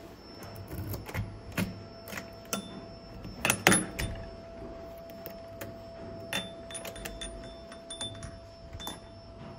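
A metal key jangling on its chain and scraping and clicking into a door's cylinder lock, the loudest clicks about three and a half seconds in as the key turns. Further clicks and rattles follow as the latch releases and the door opens.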